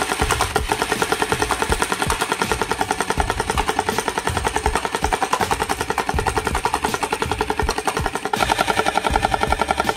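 Electric M134-style minigun gel blaster firing in one long continuous burst, giving a fast, even rattle. A little after eight seconds in, the rattle turns slightly brighter.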